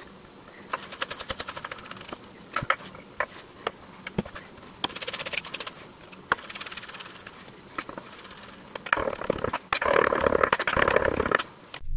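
Chef's knife chopping vegetables on an end-grain wooden cutting board: quick runs of rapid taps of the blade on the wood, with short pauses between runs. Near the end the chopping gets denser and louder as garlic is minced.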